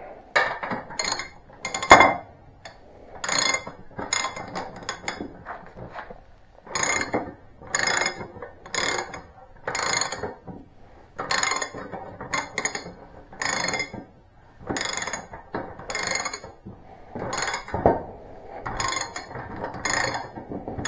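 Hand tools working a steel brush-cutter blade bolt: a long series of short, sharp metallic clicks and clinks with a ringing edge, coming about one to two a second, often in quick pairs or threes.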